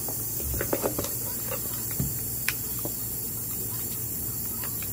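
Thick glitter slime being stretched and squished by hand, giving a few soft clicks and pops, most of them in the first second, over a steady background hiss.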